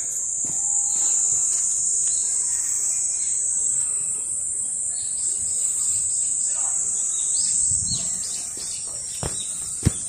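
Steady, high-pitched drone of insects in summer vegetation, with a few short bird chirps and a couple of sharp clicks near the end.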